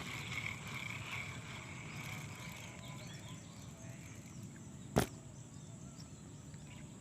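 Steady outdoor background noise with a faint high-pitched chatter in the first few seconds, and one sharp click about five seconds in.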